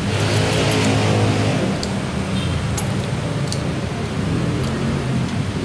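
Lakoni oil-less air compressor running with a steady hum. A burst of air hiss comes in the first second or so, and a few sharp clicks follow.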